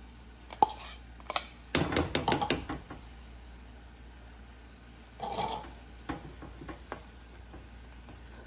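A metal spoon knocking and scraping against an enamel saucepan as a thick onion paste is tapped off into the gravy, with a quick run of loud knocks about two seconds in. A short scrape comes around five seconds in, then a few light clicks of stirring.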